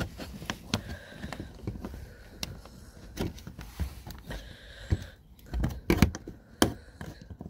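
A metal bolt and washer being handled and set into a hole in a plastic car panel: scattered small clicks and taps, with the loudest cluster about six seconds in.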